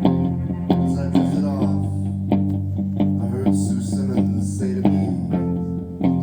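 Live band music without singing: bass guitar and guitar playing over a steady drum beat.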